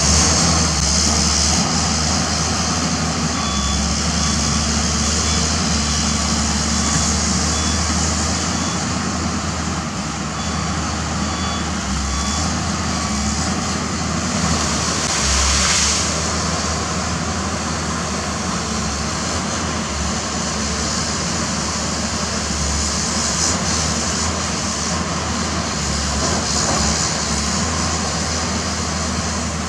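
Pindad Excava 200 excavator's Deutz six-cylinder diesel engine running steadily under hydraulic load while the machine works, a deep continuous drone with a short rush of brighter noise about halfway through.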